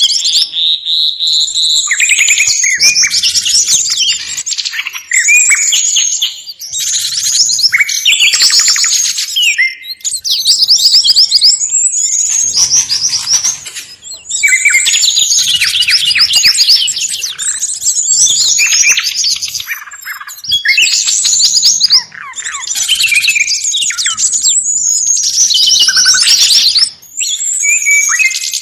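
A dense, busy chorus of several small songbirds chirping and trilling over one another: a bird-trapping lure recording of mixed calls meant to draw birds in. The calls are high and come in quick runs, with only brief gaps.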